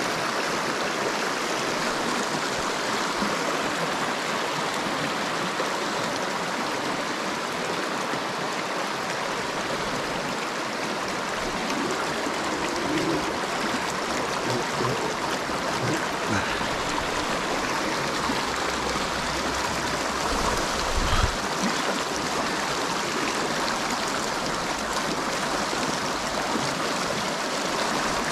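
Fast mountain river rushing steadily over rocks and riffles, with a brief low thump about three-quarters of the way through.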